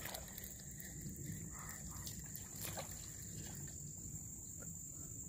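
A steady high-pitched insect chorus, with the quiet ticking of a spinning reel being cranked as a small fish is reeled in.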